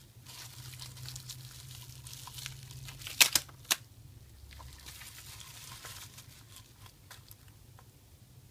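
Plastic bubble wrap crinkling and rustling as it is unwrapped from small parts, with scattered ticks and two sharp snaps a little past three seconds in, the loudest sounds.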